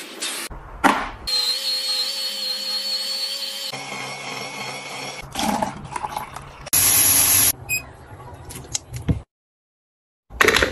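Small household appliances heard one after another: clicks and knocks, a steady electric motor whine for about two seconds, a rougher mechanical stretch and a brief loud hiss, then a short silence and more clicks.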